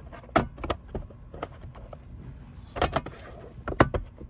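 A hand handling a speaker grille on a plastic car door panel, making a few sharp clicks and knocks: one about half a second in, a cluster around three seconds in with a short scrape, and another near the end.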